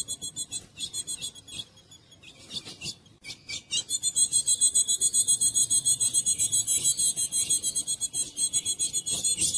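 Female ultramarine grosbeak (azulão) calling with a fast run of short, high, rasping notes. The notes come in broken spurts with a brief pause, then about four seconds in they run together into a dense continuous chatter.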